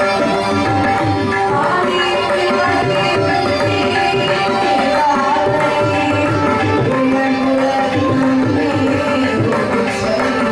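A woman singing a Carnatic-style devotional song, accompanied by a mridangam played with the hands.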